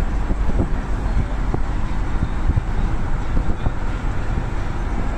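Steady road and wind noise of a moving car, heard from inside the cabin, deep and rumbling with a few faint knocks.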